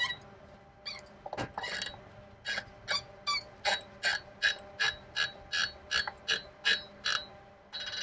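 Screwdriver tightening the retaining screw of a Dell PowerEdge R720xd CPU heatsink: a few scattered clicks, then a steady run of short, slightly ringing clicks about three a second from a couple of seconds in.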